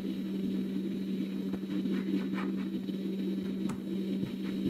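Hot air rework station (Quick 861DW) blowing from its handpiece: a steady hum with a rush of air while it heats the laptop display's adhesive. A few faint clicks from a plastic pick working behind the screen edge.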